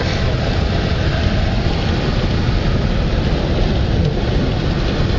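Steady low rumble and hiss of a 2008 Chevrolet Silverado pickup driving on a snow-covered road, heard from inside the cab: engine, tyre and road noise.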